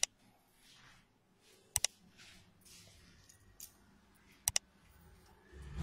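Sharp double clicks of a computer mouse, heard three times about two to three seconds apart, with faint soft noise between them.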